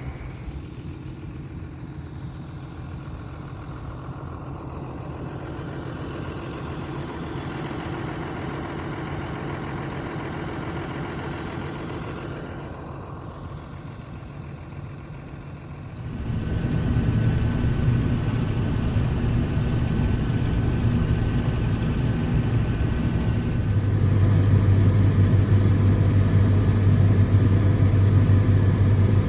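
Farm machinery engine running steadily, getting louder and deeper about halfway through and louder again near the end.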